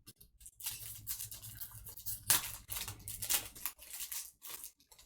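Foil trading-card pack wrapper being torn open and handled: a quick, irregular run of crinkling and ripping rustles.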